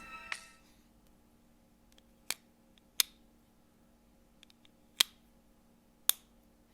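Four sharp, separate clicks spread over several seconds, with a few faint ticks between them, as of small hard objects being handled or snapped together. The tail of background music fades out right at the start.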